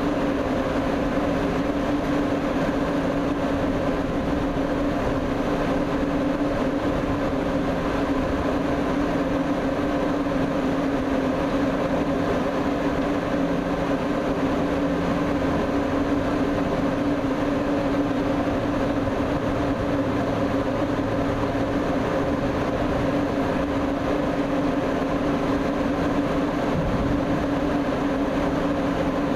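Walking dragline's machinery running with a steady, unchanging drone and a strong low hum as the machine walks on its cam-driven walking shoes.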